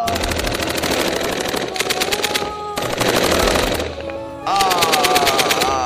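Rapid automatic-gunfire sound effect in long bursts, with a short break before the middle. Near the end a wavering pitched sound joins the shots.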